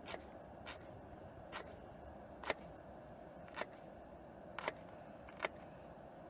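Opinel folding knife cutting through food onto a cutting board: sharp, separate taps about once a second, over a steady low hiss.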